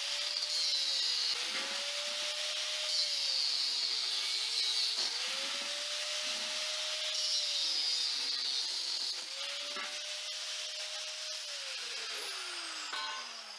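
Mini angle grinder cutting through the metal guard collar of a small gas cylinder. The motor's whine sags each time the disc bites into the metal, over a constant high grinding hiss. Near the end it is switched off and winds down, its pitch falling away.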